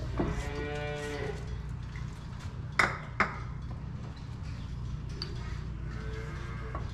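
A cow mooing: one call about a second long near the start and a fainter one near the end, with two sharp metallic clanks about three seconds in.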